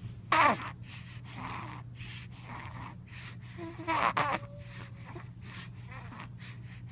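Three-month-old baby's rapid, noisy breathing: each breath comes as a short raspy wheeze from airways made floppy by tracheomalacia, about two a second. Two brief infant coos break in, about half a second and four seconds in.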